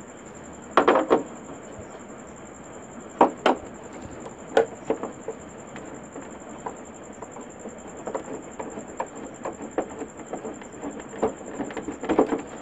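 Screwdriver working the screws out of a CRT television's plastic back cover: scattered clicks and knocks of metal on plastic, the loudest about a second in, a cluster around three to four seconds in, and again near the end.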